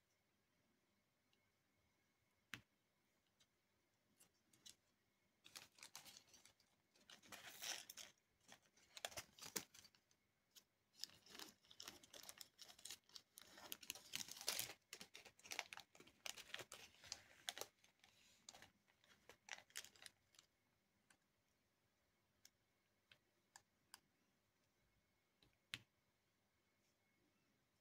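Diamond painting at work: faint clicks of a drill pen tapping plastic resin drills onto the adhesive canvas. From about five to twenty seconds in, a dense stretch of rattling and crinkling of small plastic pieces.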